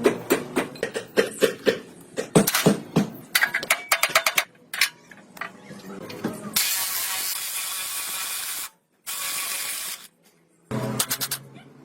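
Workshop hand-tool work: rapid clicking and knocking of metal parts, then two bursts of steady hissing spray, each cut off abruptly, and more clicking near the end.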